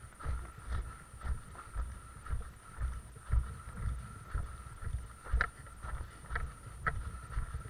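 Footsteps of someone walking at a steady pace, about two dull thumps a second, with a few sharper crunches in the second half and a faint steady tone underneath.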